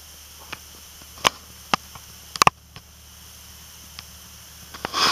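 Scattered sharp clicks and taps, about half a dozen spread over the first four seconds and a quick cluster near the end, the loudest about two and a half seconds in. They come from hands and camera handling against a car's interior trim and controls, over a faint steady background.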